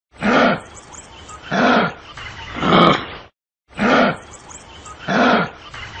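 Kangaroo calling: short calls about a second apart, three in a row, a brief break, then two more.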